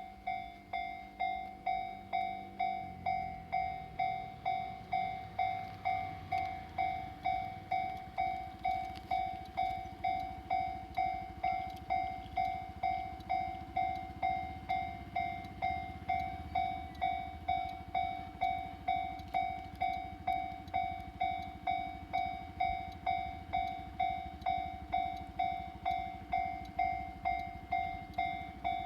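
Japanese railway level-crossing warning bell switching on and ringing its repeated electronic ding, about three strikes every two seconds, as the crossing activates for a train. A low rumble, typical of the approaching diesel railcar, builds underneath from a few seconds in.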